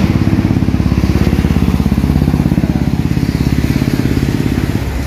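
An engine running steadily with a fast, even throb.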